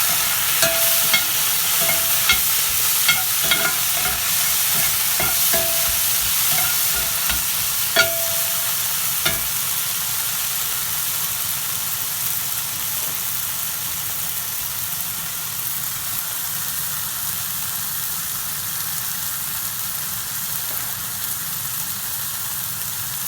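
Onions and shiitake mushrooms sizzling in a hot pan just after a tablespoon of water goes in, with a utensil clicking and scraping against the pan as they are stirred. The clicks stop about nine seconds in, and the sizzle eases off.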